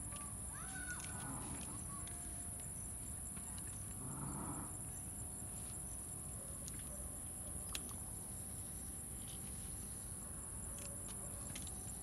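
Steady high-pitched chirring of insects such as crickets, with a few faint sharp clicks of small scissors snipping roselle calyx stems, one a little louder about three quarters of the way through.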